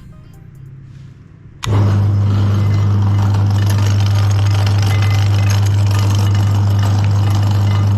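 Electric meat grinder switched on a little under two seconds in, its motor then running with a loud, steady hum.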